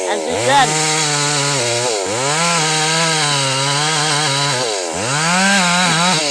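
Two-stroke chainsaw with a 22-inch bar running hard in a cut. Its engine note drops sharply and climbs back to full speed three times: just after the start, about two seconds in and about five seconds in.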